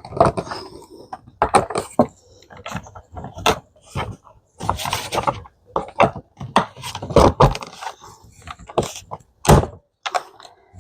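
Hard plastic parts of a Home Depot Stripe gremlin figure knocking, clicking and scraping as the torso is pressed onto the legs and snapped into place: a run of irregular clicks and knocks.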